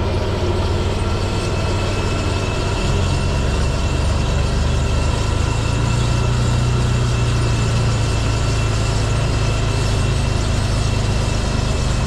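Nexat tracked implement carrier's engine running steadily as the machine drives across the field, a low drone with a thin steady whine above it, growing a little louder about three seconds in.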